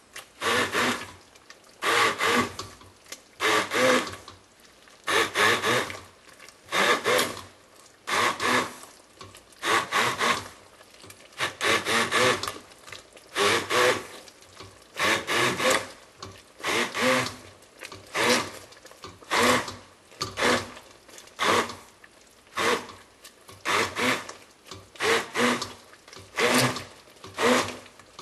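Immersion blender puréeing chunks of cooked pumpkin in broth in a metal pot, run in short bursts roughly every second and a half.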